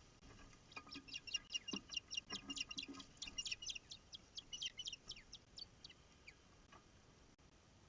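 Osprey calling: a fast series of sharp, high chirps, about six a second, that thins out and fades near the end.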